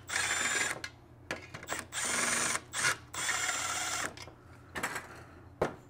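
Cordless Milwaukee FUEL driver spinning muffler bolts into a two-stroke blower engine block, in three short runs with brief pauses between. The bolts are only being run in, not yet tightened down.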